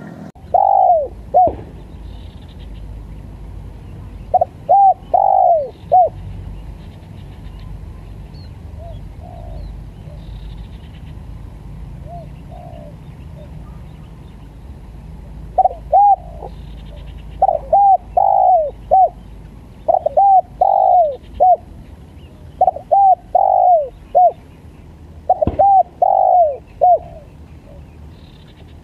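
Spotted dove cooing, repeated phrases of two to four notes with pauses between them, coming thick and fast in the second half. A low steady rumble runs underneath, and there is one sharp click near the end.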